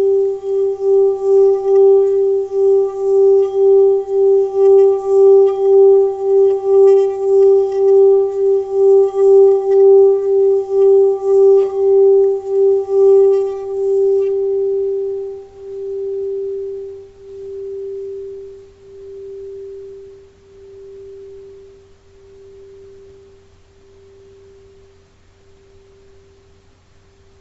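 Tibetan singing bowl sung around its rim, giving one steady pulsing hum with fainter higher overtones. About halfway through the rubbing stops, and the bowl rings on by itself, its wobble slowing as it fades away.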